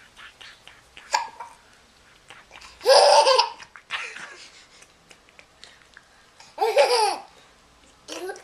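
A young child with the hiccups, hiccuping and laughing: a short sharp sound about a second in, then two loud bursts of laughter about three and seven seconds in.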